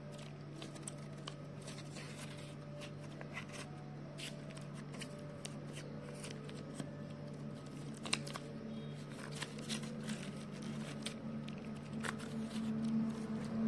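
Origami paper being handled and pressed into shape, with light, irregular rustling and crinkling and small taps. A steady low hum runs underneath.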